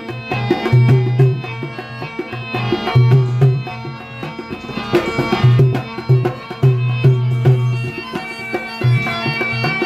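Rajasthani Manganiyar folk devotional music: a dholak beats a lively repeating rhythm of deep strokes under a melody held over a steady drone.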